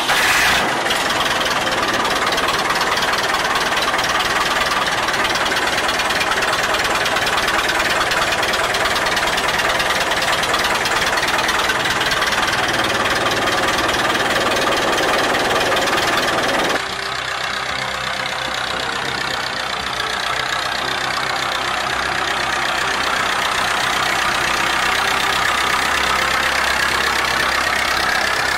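Massey Ferguson 30 Industrial tractor's diesel engine running steadily. About 17 seconds in, the sound changes abruptly and drops a little in level.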